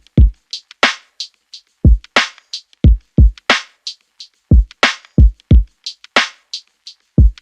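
Background music: a sparse electronic drum-machine beat of deep, falling kick drums and sharp snare hits.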